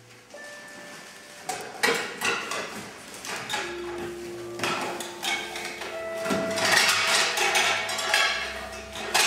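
Live electroacoustic music: a dense run of clattering knocks and hits over held tones that shift to a new pitch every few seconds. It starts quietly and the hits pile in from about a second and a half in.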